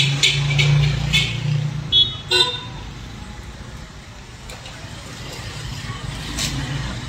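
Crackling of a homemade salt-water welder's arc as its electrode touches the steel sheet, with an electric hum, through the first second and a half. Two short car-horn beeps about two seconds in, then a steady low rumble.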